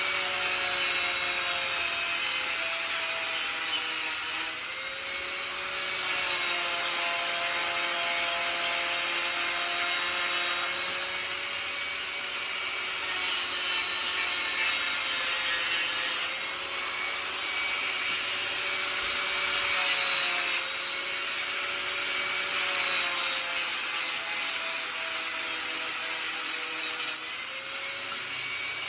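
Power sander grinding down welds and metal filler on a steel bracket. A rasping hiss of abrasive on metal runs over a motor whine that sags and recovers as the tool is pressed on and eased off, with the level shifting every few seconds.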